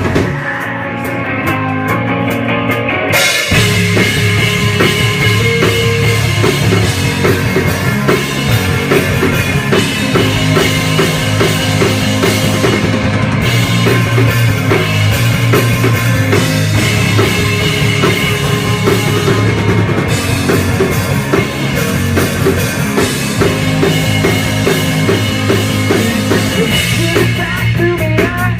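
Instrumental section of a rock song: a band with a drum kit playing steadily. It starts muffled for about three seconds, then the full band comes in.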